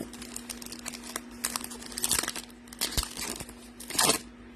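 Foil trading-card pack wrapper crinkling and tearing as it is ripped open and handled: a run of irregular rustles with louder crackles about two, three and four seconds in.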